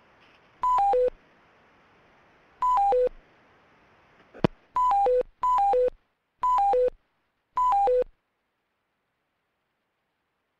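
Conference-call line tones: a short three-note falling chime, played six times at uneven intervals, the kind an audio conference bridge sounds as callers hang up. A single sharp click about four and a half seconds in.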